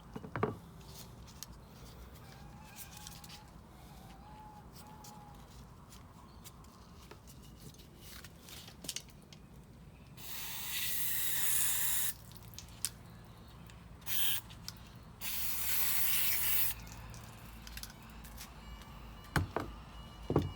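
Aerosol cleaner sprayed onto carburettor parts in hissing bursts: one spray of about two seconds some ten seconds in, a short burst, then another spray of about a second and a half. Small clicks and taps from handling the parts fill the gaps.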